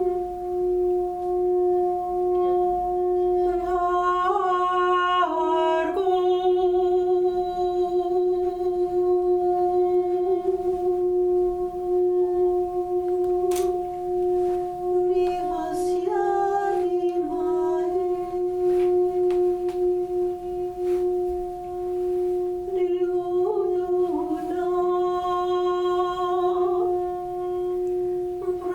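Sound-bath music: a steady drone tone held at one pitch, with a second tone an octave above, under a woman's wordless vocal toning. The voice slides in pitch in three phrases, near the start, in the middle and near the end.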